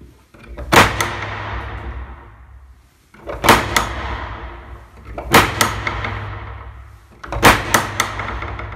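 Cinematic impact sound effects: four heavy slamming hits, about two seconds apart, each a quick double or triple stroke over a low rumble that fades away in a long echo.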